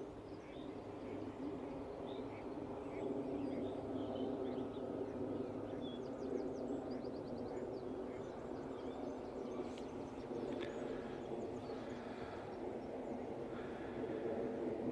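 Outdoor ambience: a steady low hum, with faint, short chirps of small birds calling now and then.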